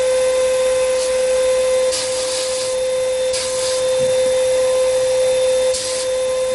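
Harbor Freight sandblasting cabinet blasting iron oxide media at 90 psi against rusty metal: a steady hiss with louder spurts about two seconds in, around three and a half seconds in, and near the end, over a steady motor whine.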